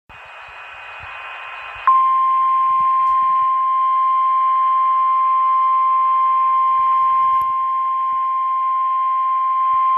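A hiss growing louder for about two seconds, then the NOAA Weather Radio warning alarm tone: one steady, loud 1050 Hz tone that starts abruptly and holds, the signal that an emergency warning message follows.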